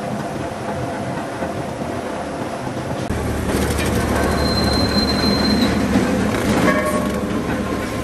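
Steel hot-rolling mill running: steel roller-table rollers and roll stands clattering and grinding as a red-hot bar passes through. A louder, deeper rumble starts about three seconds in, and there is a brief thin high squeal near the middle.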